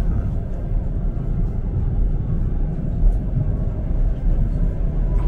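Steady low rumble of a moving Soviet-made passenger train, heard from inside the carriage.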